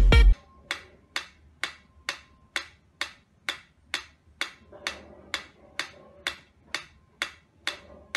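Mechanical pendulum metronome ticking steadily, a little over two sharp ticks a second. Loud music from the previous clip cuts off about a third of a second in.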